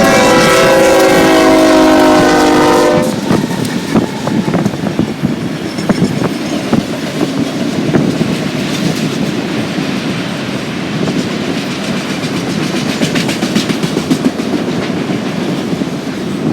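A diesel locomotive's air horn sounds one chord for about three seconds and cuts off. A freight train then rolls past, its wheels clicking steadily over the rail joints.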